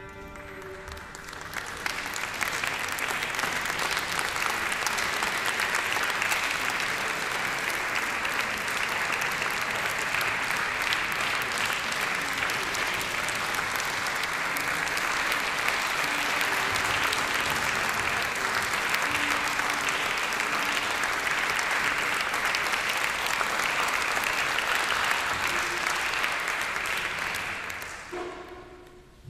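Audience applauding steadily. The applause builds up over the first couple of seconds and dies away near the end.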